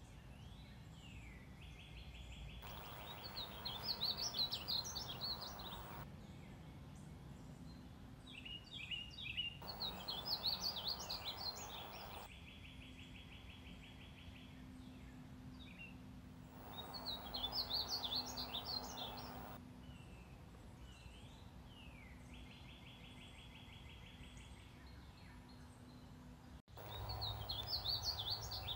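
Male painted bunting singing: a quick, sweet, jumbled warble of high notes, repeated four times about every six to seven seconds. Between songs, an even buzzy trill sounds three times.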